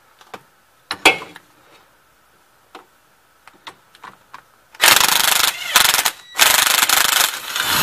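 Cordless impact wrench hammering on a 13 mm rear brake-bracket bolt of a 1995 Chevrolet Lumina. It rattles in three short bursts about halfway in, then runs on longer near the end. A sharp click comes about a second in.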